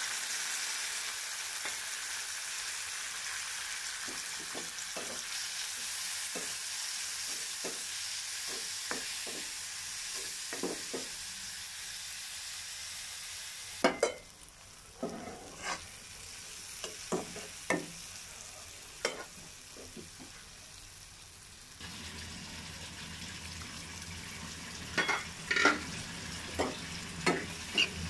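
Sliced onions and spices sizzling in hot oil in a granite-coated pan. The sizzle is loudest in the first half. Later a spatula knocks and scrapes against the pan many times as the onions are stirred.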